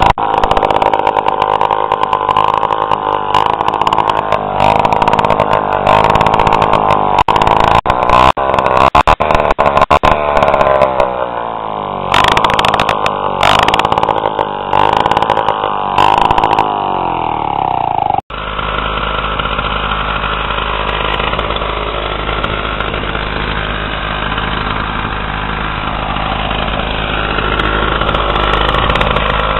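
1961 Lawn-Boy Loafer lawn tractor's 85cc two-stroke engine running with no muffler: loud, with many sharp pops, its pitch rising and falling with the throttle. About 18 seconds in it cuts to the same engine running steadier and smoother with the muffler back on.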